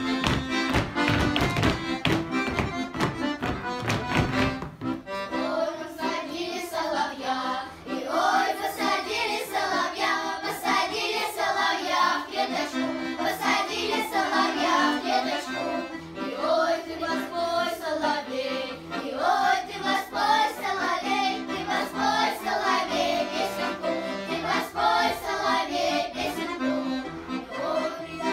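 An accordion plays a folk tune with a steady, beating bass. About five seconds in, a children's folk-song ensemble of girls starts singing with the accordion accompanying them.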